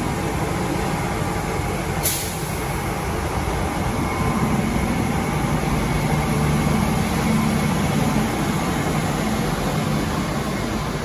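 Bombardier Innovia APM 100 rubber-tyred light-rail train pulling away from the platform: a short, sharp hiss of air about two seconds in, then the steady running noise of the train's motors and tyres, building for a few seconds and easing as it draws away.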